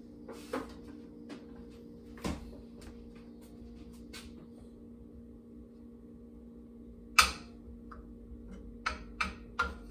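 Kitchen handling sounds over a steady low hum: a few soft knocks as the fridge door is shut, then a sharp clack of a utensil on a frying pan about seven seconds in and several lighter taps near the end.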